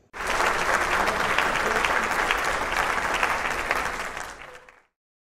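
Applause from a group of people, many hands clapping at once with a few voices underneath; it starts abruptly, fades, and cuts off to silence near the end.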